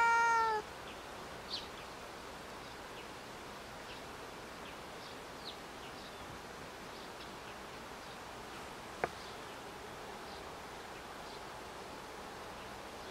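A cat meows once at the very start: a single call that rises and then falls in pitch. After it comes a faint outdoor background with scattered high chirps and one sharp click about nine seconds in.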